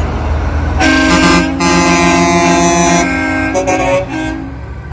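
Semi truck air horn blowing a long blast of about two seconds, then a short toot, over the low rumble of passing truck engines.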